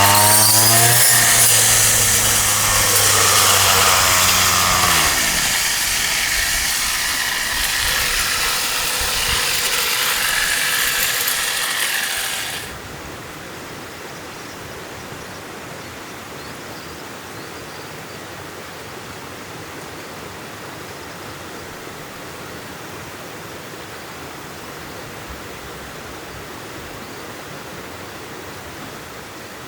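A small engine-driven machine runs with a loud rasping noise; the engine winds down and stops about five seconds in, the rasping noise carries on and cuts off abruptly around halfway, leaving a steady hiss.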